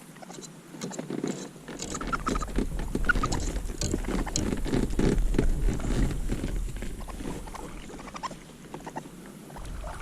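Scratching, tapping and knocking on a plastic kayak, many small irregular clicks with a low rumble under them, easing off near the end.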